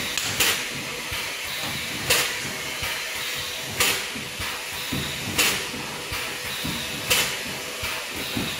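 CNC double-head wire mesh spot welding machine cycling, with a sharp, short hiss of its pneumatic heads five times, about every one and a half seconds, over a steady background hiss.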